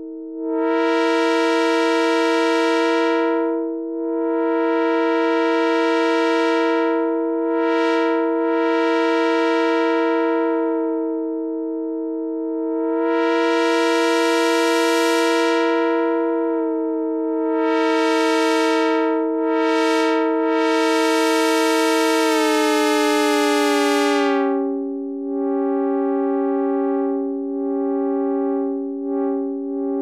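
Synth One app's two sawtooth oscillators holding a two-note chord that sounds like an Indian train horn. The low-pass filter is swept up and down, so the held tone brightens and dulls over and over. About 22 seconds in, the pitch slides down a little and holds there.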